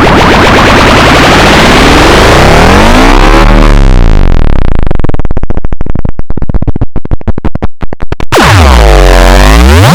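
Loud synthesized sound effect: buzzy electronic tones sweeping up and down in pitch. About halfway in it breaks into a rapid stutter that slows and stops. A fresh sweep then dips low and rises again near the end.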